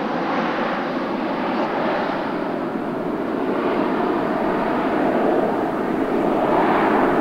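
Jet noise from a Boeing 737-800's CFM56-7B turbofan engines on final approach with gear down, a steady rush that grows a little louder near the end.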